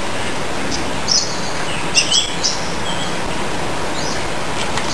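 Birds chirping over a steady outdoor background hiss, with short high chirps about a second in, a quick cluster around two seconds, and one more near four seconds.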